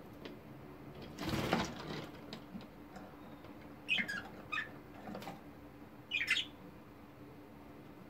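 Budgerigar wings flapping in one short burst about a second in, followed later by two brief bouts of short, quick budgie chirps.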